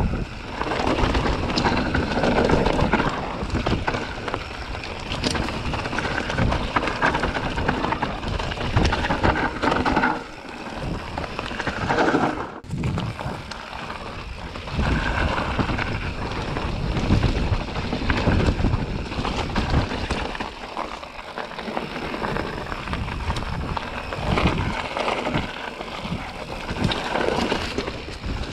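Transition Sentinel full-suspension mountain bike riding fast down a dirt forest trail: tyres rolling over dirt and roots with constant rattles and knocks from the bike, and wind buffeting the camera's microphone.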